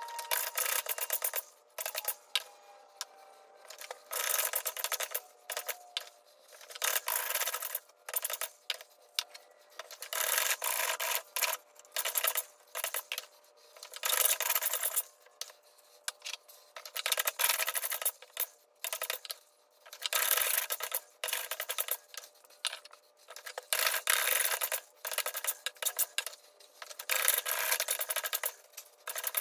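Jack plane taking shavings off a bandsawn stool-leg taper held in a vise: a quick series of short rasping cutting strokes, about one or two a second, with brief pauses between runs.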